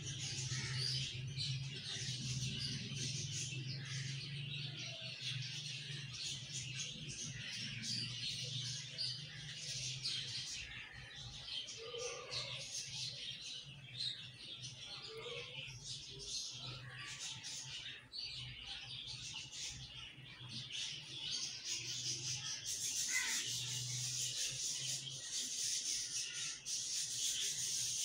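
Semolina halwa sizzling and crackling in hot ghee in a wok as it is stirred with a spatula, a dense run of fine crackles, with a steady low hum underneath.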